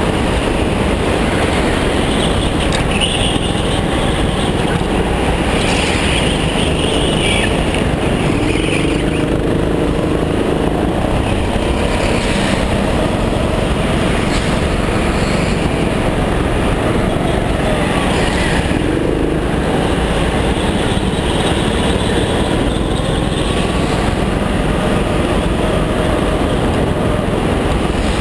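Go-kart engine running hard through laps, recorded up close on the kart, with its pitch rising and falling through the corners.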